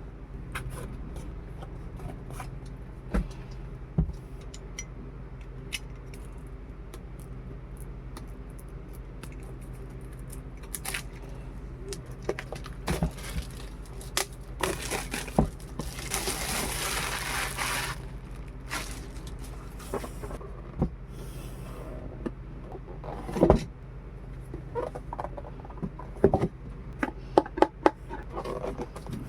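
Hands handling an action figure and its packaging: scattered clicks, taps and scrapes, a rustle lasting a couple of seconds about halfway through, and a few sharper knocks near the end, over a steady low hum.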